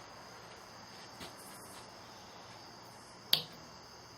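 A band snapping into place while being fitted over the brace and base of a fire-drill setup: a faint click about a second in, then one sharp snap a little after three seconds.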